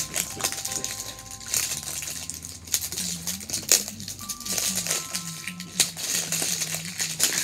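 Clear plastic wrap on an L.O.L. Surprise ball crinkling and crackling in irregular sharp crackles as it is peeled off by hand, over background music.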